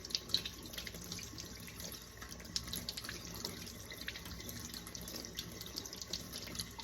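Tap water running into a sink as chicken pieces are rinsed off under it, with irregular splashing and small knocks from the handling.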